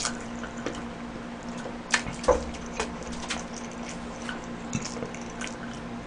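Close-miked eating and drinking sounds: soda sipped through a straw and food chewed with the mouth full, giving scattered wet clicks and squishes, a few of them sharper about two to three seconds in.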